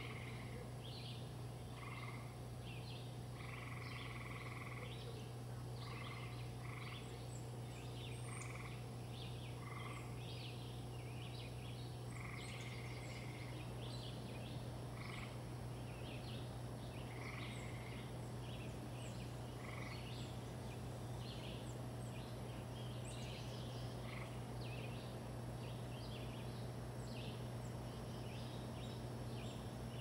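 LG Inverter V ductless mini-split outdoor unit running, its inverter compressor and condenser fan giving a steady low hum, with birds calling and chirping in the background.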